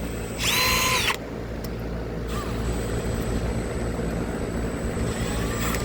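Steady low mechanical drone, with a brief louder, higher sound between about half a second and a second in.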